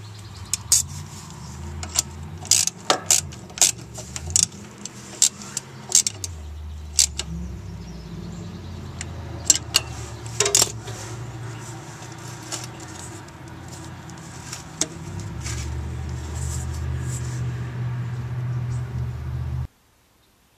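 Sharp metallic clinks and clacks, scattered and irregular, from tools and metal parts being handled during the strut job, over a low rumble. The rumble swells and holds steady in the last few seconds, then cuts off suddenly.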